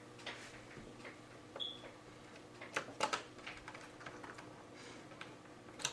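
Faint, scattered clicks and ticks of a small screwdriver driving screws into an HP laptop's metal chassis, with a few sharper clicks about three seconds in.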